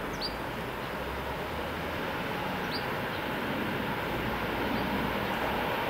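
ED4M electric multiple unit approaching from a distance, its running noise of wheels on rail a steady hiss that slowly grows louder. A bird chirps briefly three times.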